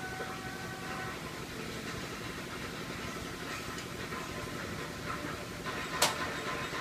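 Steady low hum and hiss of a wok of water spinach cooking on a small stove, with one sharp click about six seconds in.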